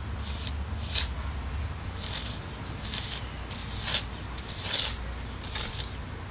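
A metal jointing tool scraping along partly set mortar joints between bricks in short, irregular strokes, about one a second, over a steady low rumble.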